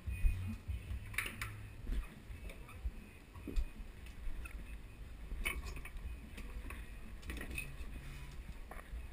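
Pieces of wooden board and kindling knocking and clattering together as they are picked up and handled, with a few sharp knocks scattered irregularly through it.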